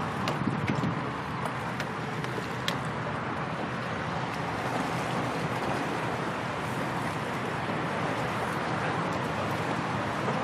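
Steady outdoor background noise, an even rushing hiss with no distinct engine note, and a couple of faint clicks in the first few seconds.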